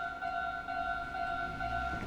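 Japanese railway level-crossing alarm ringing, its electronic 'kan-kan' tone repeating about twice a second. A low rumble builds under it near the end.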